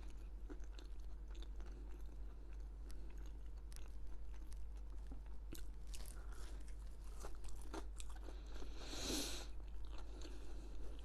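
Close-miked chewing and crunching of food, with scattered small mouth clicks and a louder crunching burst about nine seconds in.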